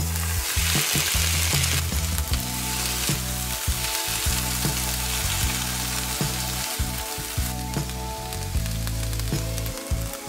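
Diced tomatoes tipped into a hot frying pan of onion and red bell pepper, sizzling hardest in the first two seconds, then frying steadily while a spatula stirs the vegetables.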